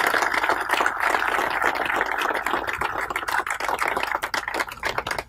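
Crowd applauding, a dense clatter of many hands clapping that slowly dies down.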